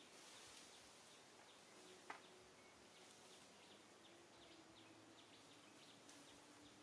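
Near silence: faint outdoor ambience with soft, scattered high chirps and one small click about two seconds in.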